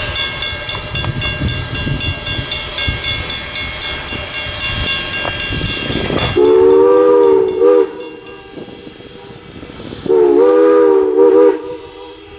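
Strasburg Rail Road No. 89 steam locomotive running past with its train for about six seconds, exhaust and running gear beating in an even rhythm. Then its chime steam whistle blows twice, two chords each about a second and a half long, part of the crew's traditional drawn-out 'ghost whistle' at the crossing.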